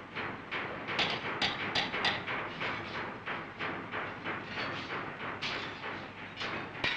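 Hammers striking steel ship's ribs on a bending slab as they are hammered and twisted to shape. The blows come irregularly, two or three a second, as clangs with a short metallic ring.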